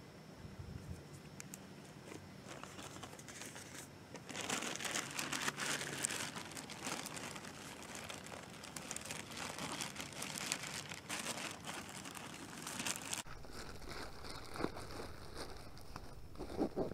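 Crinkling of sample bags being handled, starting about four seconds in and stopping abruptly near the end, followed by a few faint clicks.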